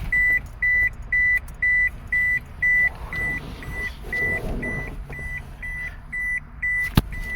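Car's electronic warning buzzer, likely the key-in-ignition reminder, beeping in a steady high tone about twice a second. It stops after a sharp click near the end.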